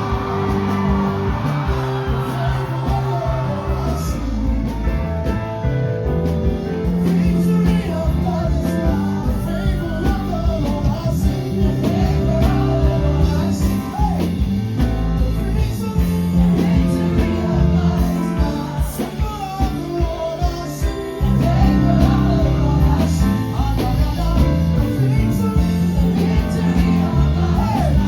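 Live gospel praise music: a singer's voice over a band with a steady drum beat and bass line.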